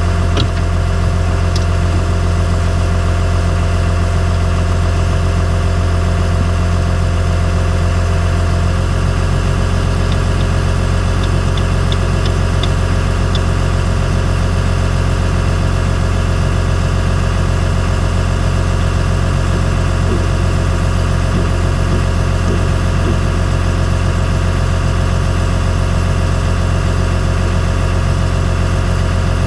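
Cat 315C L hydraulic excavator's diesel engine idling steadily, heard from inside the operator's cab as a deep, even hum. Its note shifts slightly about nine seconds in.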